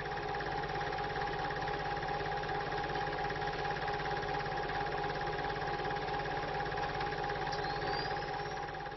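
Steady machine-like hum with a fast, even rattle underneath and a few held tones over it, from the sound effect laid under the "The End" title card. A faint rising whistle comes in about seven and a half seconds in.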